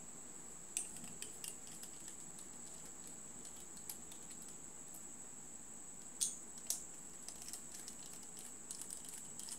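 Small screwdriver clicking and ticking as it unscrews a tiny screw from a dynamic microphone's handle: a click about a second in, two sharper clicks past six seconds, then light ticks near the end, over a steady high thin whine.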